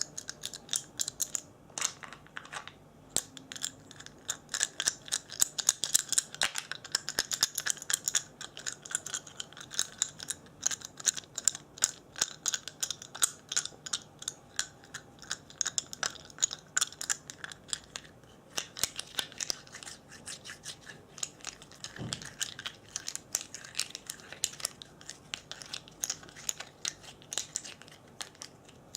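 ASMR trigger sounds: a fast, continuous run of crisp, short scratching and clicking noises, several a second.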